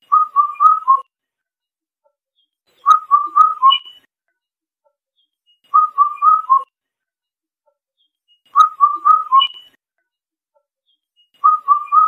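Indian cuckoo calling its four-note phrase, three notes at about the same pitch and a lower fourth, repeated about every three seconds.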